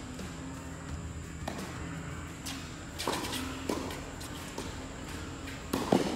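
Tennis ball struck by rackets during a doubles rally: a handful of sharp pops a second or so apart, the loudest near the end, over a steady low hum.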